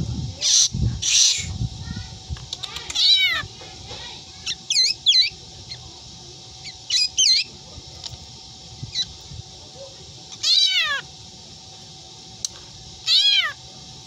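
Black drongo imitating a cat's meow: about seven short, arching meows at uneven gaps, some in quick pairs, after two harsh rasping calls near the start.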